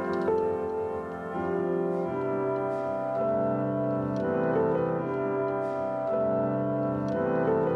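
Background music: sustained keyboard chords changing every second or so.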